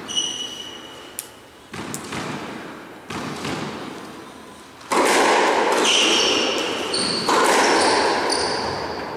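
Squash ball knocks on the court: a knock with a short ringing note just after the start, then single knocks about one, two and three seconds in. From about five seconds in, a loud steady rushing noise, which grows louder again about two seconds later.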